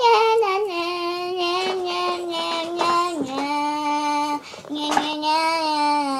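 A child singing without clear words, holding long notes that step down in pitch, with a short break about four and a half seconds in.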